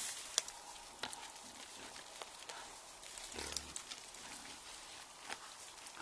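Wild boar feeding on the ground, with frequent small clicks and crunches from rooting and chewing, and one short, low grunt about three and a half seconds in.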